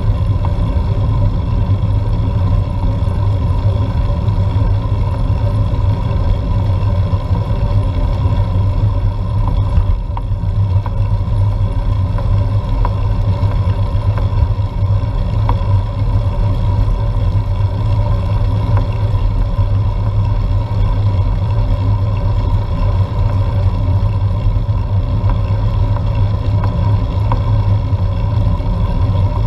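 Wind buffeting the microphone of a GoPro on a moving road bike: a loud, steady low rumble with a faint constant drone over it.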